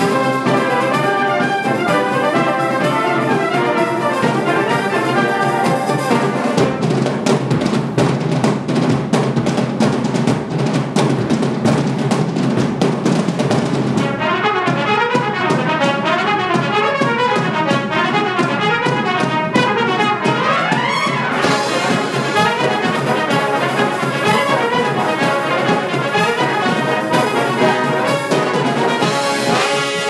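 Brass band of cornets, horns, euphoniums, trombones and tubas with percussion, playing loudly. A stretch of short, punchy repeated chords gives way about halfway through to quick running figures, with a rising run near 20 seconds before the full band comes back in.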